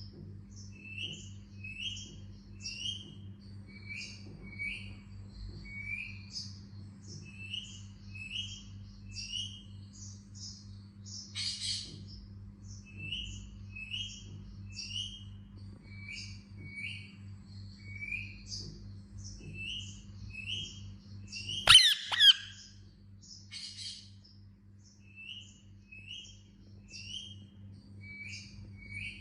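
Indian ringneck parakeet chirping: a long, regular run of short high chirps, about one or two a second, with one loud harsh squawk near the end. A steady low hum runs underneath.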